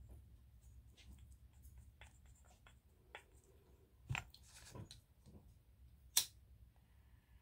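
Soft puffs drawn on a tobacco pipe amid small handling clicks, with one sharp click of a lighter about six seconds in as the bowl is being lit.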